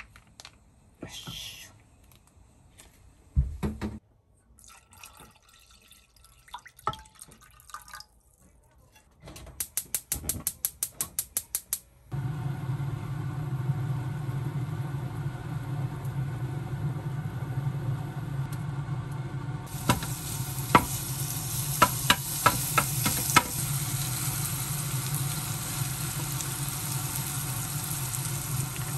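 Home kitchen cooking sounds: scattered handling clicks and knocks, then a quick run of about a dozen clicks, after which a steady low hum sets in. About two-thirds of the way in, food starts sizzling in a hot pan, with a few sharp taps of a utensil.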